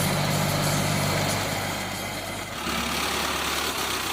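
Tractor engine running steadily. About two and a half seconds in, the sound shifts abruptly to a lower, deeper hum.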